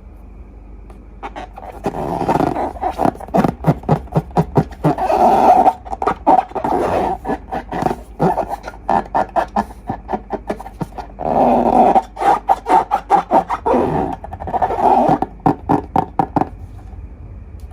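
Slime being squeezed and worked by hand, squelching with rapid runs of crackling pops, in two long stretches with a short pause between them.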